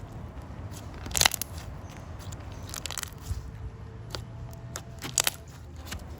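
Hands squishing and poking a glossy, clicky slime, giving scattered sharp clicks and small pops. The loudest come about a second in and again near five seconds.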